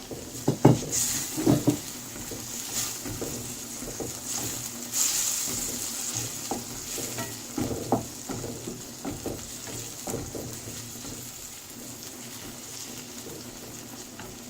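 Chopped onions and tomatoes sizzling in olive oil in a pan, with a spoon stirring and knocking against the pan, the knocks more frequent in the first two-thirds, then a steady sizzle.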